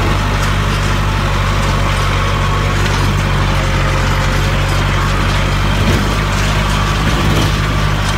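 Tractor engine running steadily as the tractor drives along, with a constant low drone and rattle.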